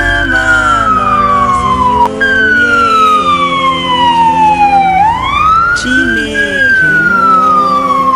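Ambulance siren wailing: a tone that rises quickly, then falls slowly in long sweeps, jumping abruptly back up to the top of its sweep about two seconds in.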